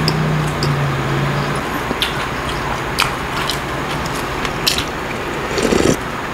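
A person eating: closed-mouth chewing with a low steady hum for the first second and a half, then sipping spicy ramyun broth from a spoon, with small wet mouth clicks and a louder sip near the end.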